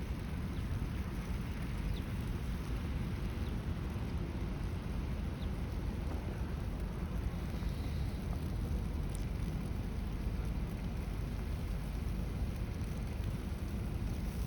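Steady low rumbling city street ambience in a blizzard: wind noise with a traffic hum and an even hiss, no clear separate events.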